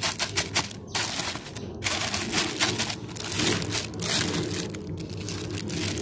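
Clear plastic bags of unhusked paddy rice handled by hand, squeezed and shaken: plastic crinkling over the rustle and crunch of the grains, in a quick uneven run with short pauses about one and two seconds in. The shaking mixes the Trichoderma fungus culture through the rice.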